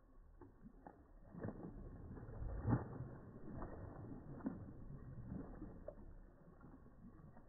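Dogs wading and splashing through shallow muddy water, with irregular sloshing and splashes, the loudest about two and a half seconds in.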